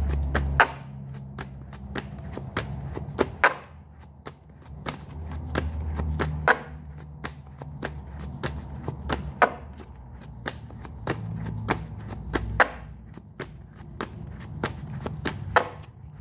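A deck of tarot cards being shuffled by hand: a quick patter of card flicks, with a louder slap of the cards about every three seconds.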